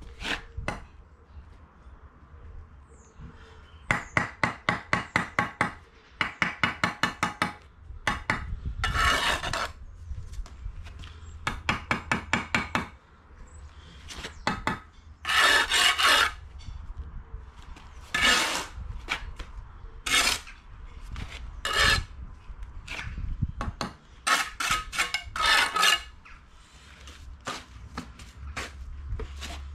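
Bricklayer's steel trowel working mortar on a course of bricks: two quick runs of light strokes, about five a second, then a series of short scrapes of the blade across mortar and brick.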